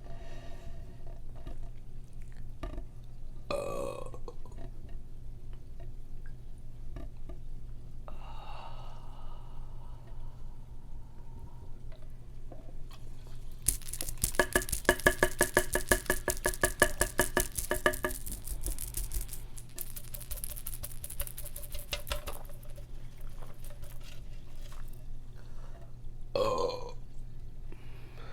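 A woman burping several times: a few short burps and one long, loud, pulsing burp of about four seconds in the middle.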